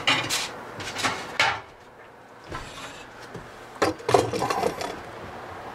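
Metal knocks and scraping of the wire cooking rack in an electric smoker as it is handled and slid forward on its side rails. A few knocks come near the start, and a busier run of clatter about four seconds in.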